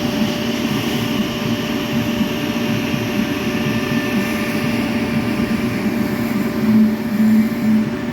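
TIG welding arc, a steady buzzing hiss with a low hum. Near the end the hum begins to swell in a regular pulse, about twice a second.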